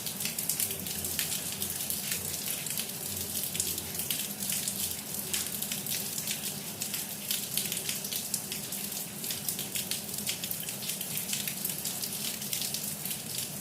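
Rain falling steadily, with many close individual drop ticks over a constant hiss.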